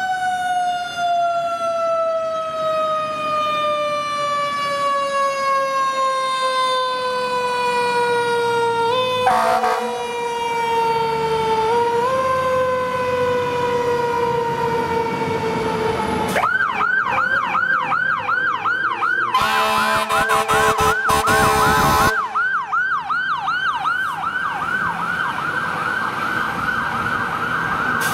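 Fire truck sirens. First a mechanical siren slowly winds down in pitch, spun back up briefly twice. Then an electronic siren yelps rapidly, about four cycles a second, with a loud horn blast lasting about two and a half seconds around twenty seconds in.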